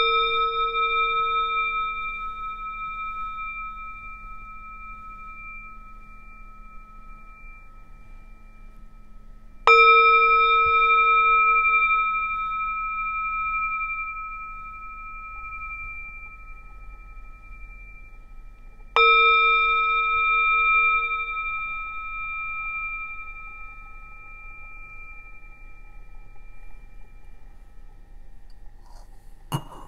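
Tibetan singing bowl struck three times with a mallet, about ten seconds apart, each strike ringing out and slowly fading; the low tone dies away within a few seconds while the higher overtones hang on. A short knock near the end.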